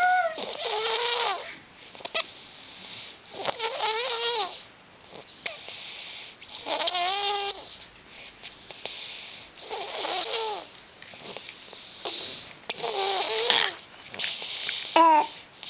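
A three-year-old girl snoring in her sleep, about once every three seconds. Each snore is a wheezy, whistling tone whose pitch bends and wavers, over a breathy hiss.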